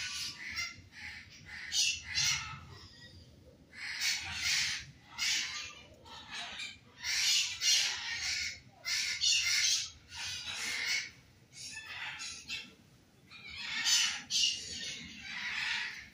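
A flock of birds making a racket: harsh squawking calls in repeated bursts, dying down briefly now and then before starting up again.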